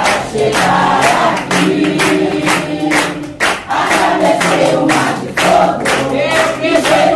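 An Umbanda ponto (devotional chant) sung in Portuguese by a group of voices over a steady drum beat.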